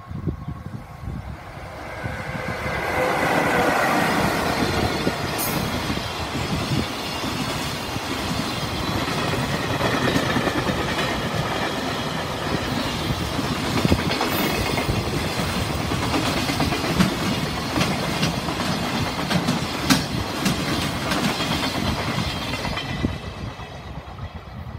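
Electric freight train passing close by: the locomotive comes past loudest a few seconds in, then a long rake of container wagons rumbles by with wheels clicking over rail joints. The sound fades as the last wagons draw away near the end.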